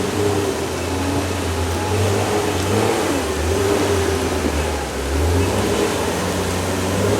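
An off-road 4x4's engine running and revving under load, its pitch rising and falling.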